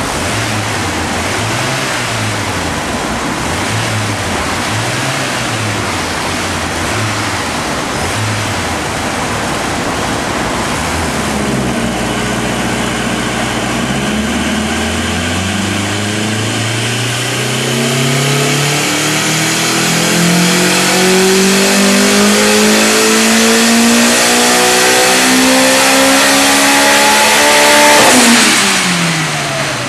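Turbocharged Honda S2000 engine making a pull on a chassis dyno over a steady rushing hiss, its pitch climbing steadily for about sixteen seconds. Near the end the revs drop sharply as the throttle closes and the Synchronic blow-off valve vents.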